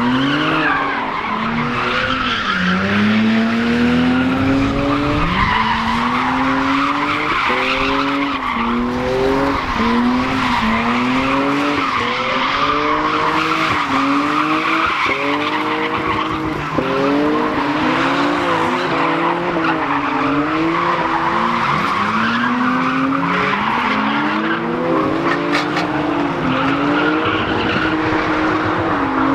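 A car spinning donuts: the tyres screech without a break while the engine revs climb, drop back and climb again about every second and a half as the wheels spin.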